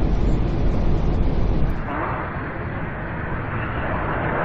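Steady noise of an Airbus A380 airliner on final approach: a low rumble with a broad hiss. About two seconds in the low rumble drops away and a narrower hiss takes over.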